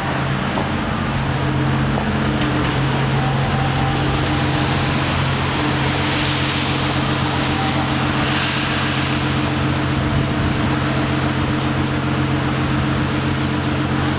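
Street traffic with a Fukui Railway 200-series tram approaching slowly on street track under a steady low hum; a car passes about eight seconds in with a short rush of tyre noise.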